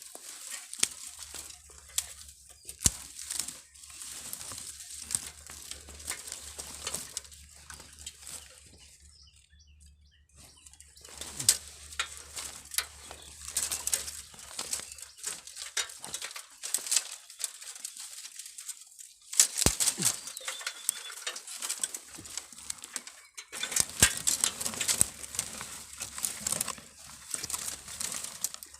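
Irregular rustling and crackling, like leaves and twigs being handled, with many sharp little snaps and two quieter pauses.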